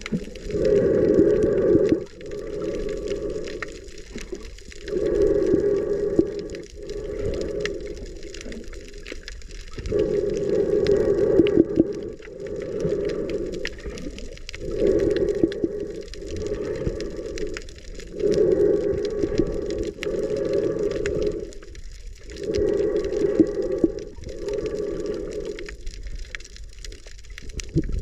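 Muffled underwater sound of a snorkeler breathing through a snorkel, heard through a waterproof camera housing: a low hollow in-and-out rush that swells and fades in pairs, one breath cycle about every three to four seconds.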